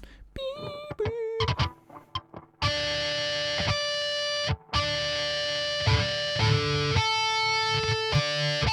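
Distorted electric guitar, an Aristides, playing a harmony lead in octave shapes through a direct recording. First come a few short notes with a wavering vibrato, then a run of held notes, each ringing about a second, with brief gaps between them.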